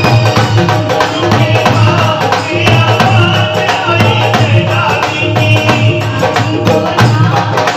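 Hindi devotional bhajan music with a steady percussion beat and a melody line held over it.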